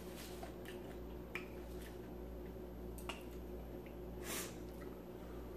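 Quiet eating and handling sounds at a table: a few small wet clicks as a bell pepper slice is dipped into a bowl of sauce, with a short hiss about four seconds in.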